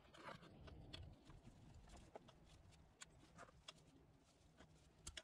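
Near silence, with faint scattered clicks and rustling from pliers in gloved hands working at the plastic filter housing of a Haldex coupling.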